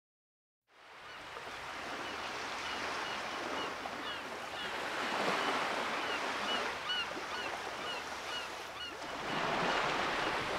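Ocean surf washing on a beach, fading in under a second in and swelling twice as waves break, with short high chirps, like a bird's, repeating over it.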